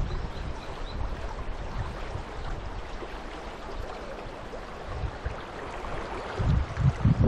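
Steady rush of river water, with low gusts of wind buffeting the microphone near the end.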